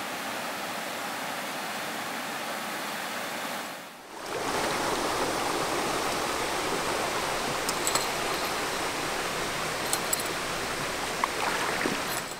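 Rushing water from a small waterfall and its current, a steady noise. After a short dip about four seconds in, louder rushing water from the swift current around the canoe, with a few sharp clicks near the end.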